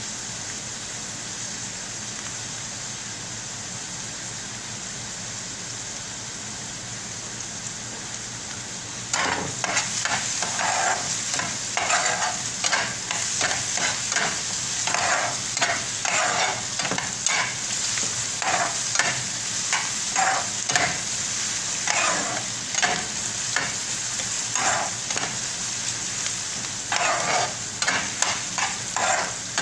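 Chopped onions sizzling steadily in hot cooking oil in a pan; about nine seconds in, a spatula starts stirring and scraping them in a quick, irregular run of strokes over the sizzle.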